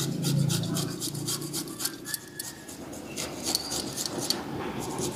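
Garlic cloves rubbed back and forth on a small hand grater, giving a quick run of short scraping strokes, several a second.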